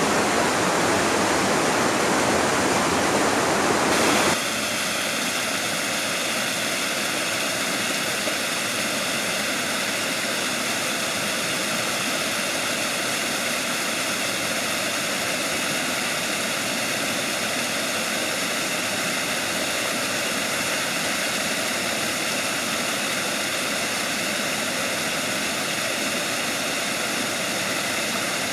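Mountain stream rushing over rocks. About four seconds in it cuts suddenly to a small waterfall cascading over a rock ledge, a steady rush of water a little quieter than before.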